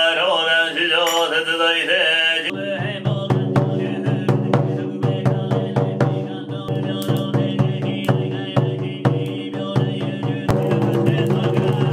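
Buddhist monks chanting a sutra in unison for a goma fire ritual. About two and a half seconds in, a drum starts beating rapidly and keeps on under a low, steady chant.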